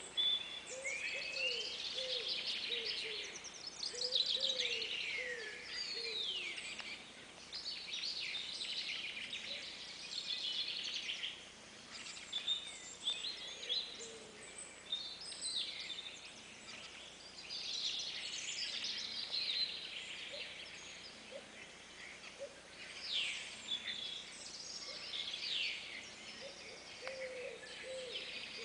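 Many birds calling at once in a dense, overlapping chorus of high chirps and swooping calls, with short lower calls repeating beneath them. It swells and thins in waves rather than stopping.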